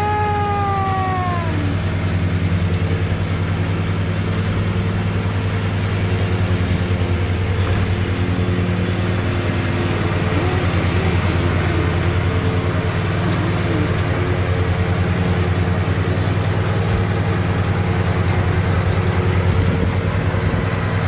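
Ariens zero-turn riding mower running steadily while it cuts tall grass, its engine note even throughout.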